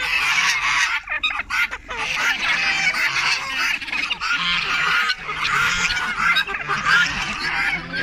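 A mixed farmyard flock of ducks, geese, chickens and turkeys calling over one another without a break, a dense, busy chorus of short overlapping calls.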